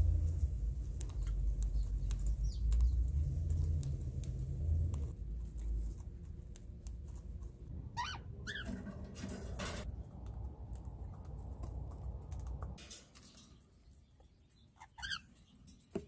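Cockatiel chirps: two short rising chirps about halfway through and two more near the end, over a low rumble that is loudest in the first few seconds and dies away before the end.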